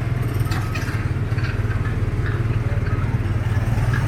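Small gasoline engine of a ride car running steadily, with a low, even drone.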